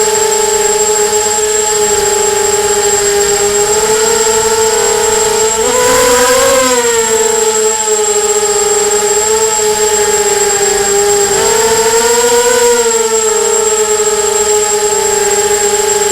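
Emax 250 racing quadcopter's brushless motors and propellers whining steadily. The pitch swells up briefly about six seconds in and again around twelve seconds as the throttle is raised, over a thin, steady high-pitched tone.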